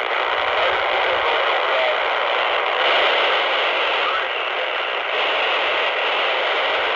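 Handheld PNI Escort HP 82 CB radio's speaker giving a steady FM receiver hiss, thin and band-limited, as it is stepped through the 27 MHz German extra channels 67 to 72.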